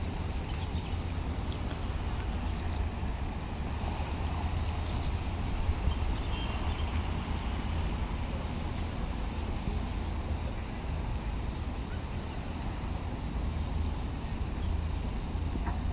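Outdoor ambience: steady low rumble and hiss of wind on the microphone. Short, high, falling bird chirps come a few times, some in quick pairs.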